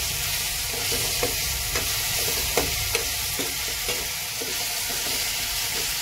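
Cooked-down onion-tomato masala sizzling in oil in a pan while a spatula stirs it, with light irregular taps and scrapes of the spatula against the pan. The tomatoes have cooked through and the oil has separated to the surface.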